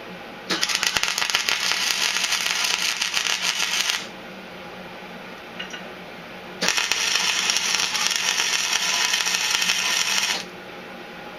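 Electric arc welding crackling in two runs of about three and a half seconds each, with a short pause between them, as a lawn-mower pulley is welded in place. Each run starts and stops abruptly.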